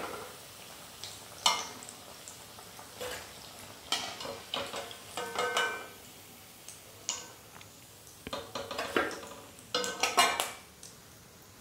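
Steel slotted spoon clinking and scraping against a steel kadai and plate as deep-fried snacks are lifted out of the oil: a string of separate knocks, some with a short metallic ring.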